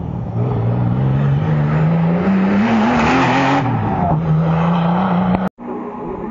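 Rally car engine, a classic Porsche 911, accelerating hard out of a hairpin: the engine note climbs steadily for about three seconds, drops sharply for a gear change, then holds steadier. The sound breaks off for an instant near the end.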